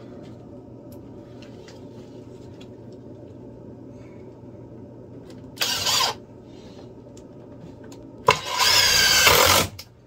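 Power drill driving 3-inch deck screws into a wooden board: a short run about halfway through, then a longer run of about a second and a half near the end with a wavering motor whine.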